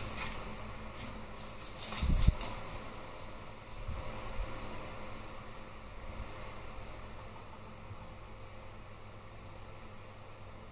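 Light handling of a paper scrap and a strip of cotton lace on a cutting mat: a few faint clicks and rustles, with one soft low thump about two seconds in. A steady high hiss or chirr runs underneath.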